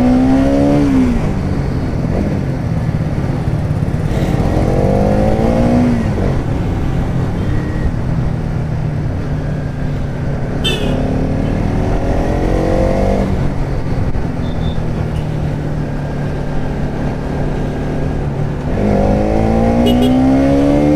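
Bajaj Pulsar NS200's single-cylinder engine heard from the rider's seat. It holds a steady note, then rises in pitch under throttle and drops back, about four times.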